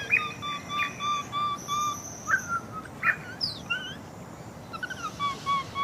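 Jungle ambience: a bird call of short, evenly spaced notes on one pitch, about three a second, heard in a run at the start and again near the end, with other chirps and a quick falling whistle in between.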